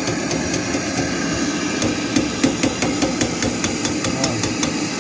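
MAP-gas torch flame running steadily while a steel-to-copper compressor tube joint is brazed. Over it come a few light metallic taps, then a quick run of them, about six a second, from about two seconds in until near the end.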